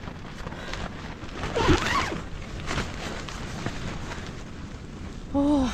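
Strong wind buffeting the microphone: a gusty low rumble with hiss and irregular knocks. A brief vocal sound comes about a second and a half in, and a woman's voice starts near the end.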